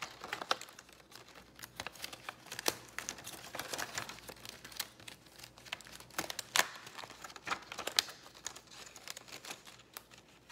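Holographic foil pinwheel petals crinkling as they are handled and worked over the pinwheel's plastic hexagonal hub, in irregular crackles with a few sharper clicks.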